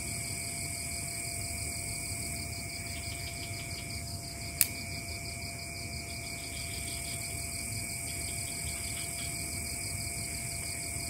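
Night forest insect chorus: crickets and other insects trilling steadily at several high pitches, over a low rumble. One sharp click about four and a half seconds in.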